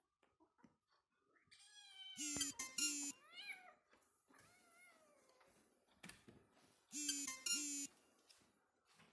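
Domestic cat meowing several times: drawn-out meows that fall in pitch, the loudest ones a couple of seconds in and again near the end.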